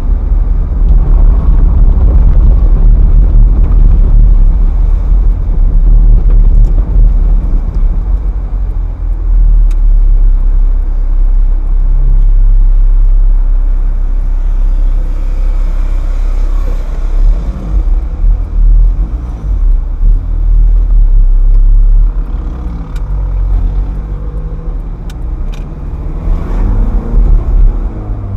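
Ferrari F430's V8 engine running as the car drives on the road, with short accelerations. Near the end the engine note rises and falls several times as the revs climb and drop.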